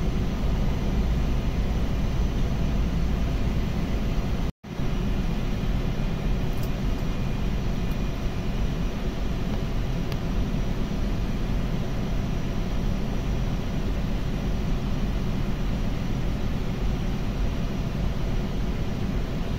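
Steady machinery drone with a hiss over it, deep and unchanging, drowning out the hand work on the bench; it cuts out for an instant about four and a half seconds in.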